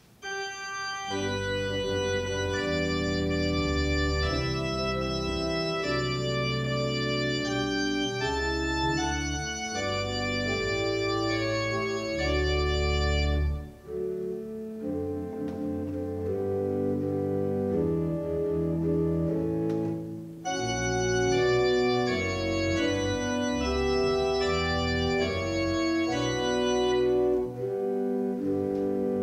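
Two-manual church organ playing slow held chords over deep bass notes, with two brief breaks in the sound, about 14 and 20 seconds in.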